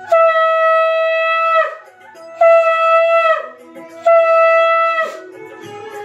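A conch shell (shankha) blown in three long blasts. Each blast is a steady horn-like note of about one to one and a half seconds that dips in pitch as it ends, with short pauses between them.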